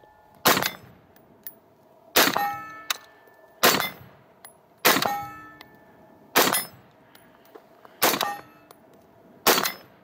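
Colt 6920 AR-15 carbine firing 5.56 mm rounds in steady, deliberate single shots, seven in about ten seconds. Each shot is followed by the ring of a hit on a steel target.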